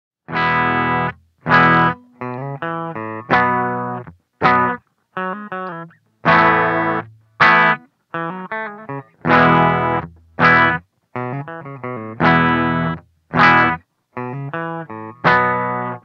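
Epiphone Les Paul electric guitar played through an amp: a repeated riff of ringing chords that stop dead into short silences, alternating with quicker runs of picked notes.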